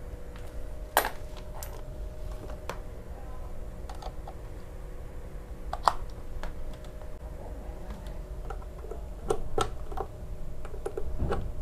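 Scattered clicks and light knocks of audio cable plugs and connectors being handled and pushed into the jacks of a Behringer XR12 digital mixer, with a faint steady hum underneath.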